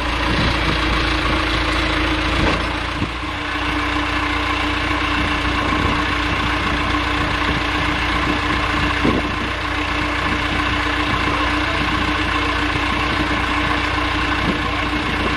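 An engine idling steadily with a constant hum, with a few short knocks about three seconds in and again near nine seconds.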